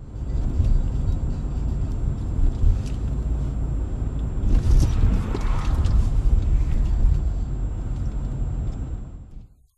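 Steady low rumble of a car driving, road and engine noise picked up inside the cabin by a dashcam, with a faint steady high whine and a brief louder noisy patch about five seconds in.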